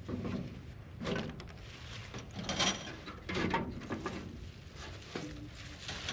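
Scattered light knocks and clatter with rustling, from gear being handled.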